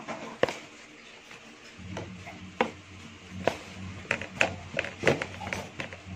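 Plastic spatula scraping and knocking against the inside of a plastic mixing bowl while mixing flour into pizza dough: irregular taps and scrapes, several a second at times.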